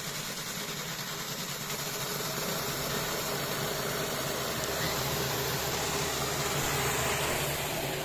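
Micro hydro turbine running on one 20 mm nozzle: a water jet driving a cast-aluminium Turgo wheel coupled to a washing-machine direct-drive motor used as a generator. A steady rush of water and spray with a mechanical hum that grows slowly louder.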